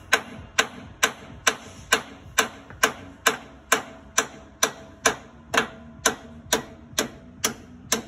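Hammer beating on the steel of a truck's leaf-spring U-bolt, a steady rhythm of about two blows a second, each ringing briefly, to knock loose the rusted-on U-bolt.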